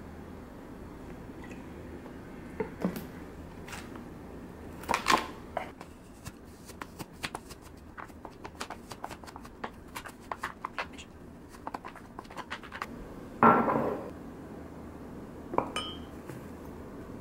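A wooden spoon knocking and scraping against a plastic food container while it breaks up a block of frozen ground turkey: a run of quick taps and clicks, with a heavier thud about two-thirds of the way through and another knock near the end.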